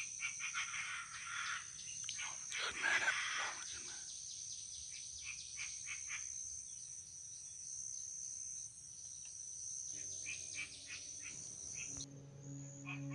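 Chinese francolin calls: a run of harsh notes in the first few seconds, then shorter scattered notes, over a steady high-pitched insect whine. Near the end the whine cuts off abruptly and a low steady hum takes over.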